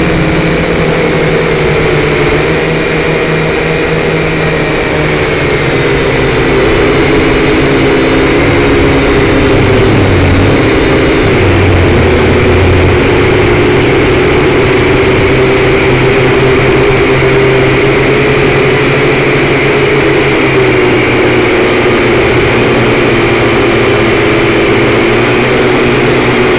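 Syma toy drone's small electric motors and propellers whirring loudly, heard close up through the drone's onboard camera microphone, the pitch drifting a little up and down as it flies.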